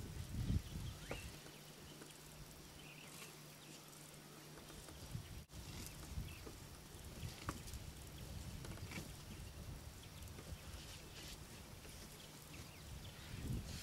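Faint outdoor ambience: a low rumble with a few soft rustles and clicks, and a faint steady hum for the first few seconds.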